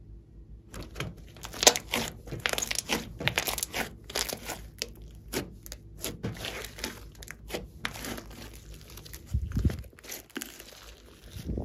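Glossy slime mixed with clay being squished, stretched and folded by hand, giving dense sticky crackles and pops. It starts after a moment of quiet, with a soft thump near the end.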